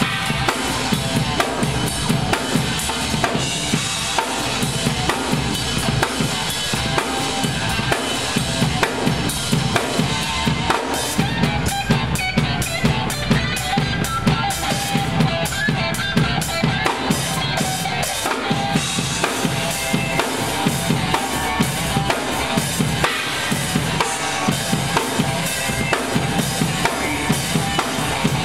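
Drum kit played continuously: bass drum and snare strokes in a dense, unbroken run, with cymbals.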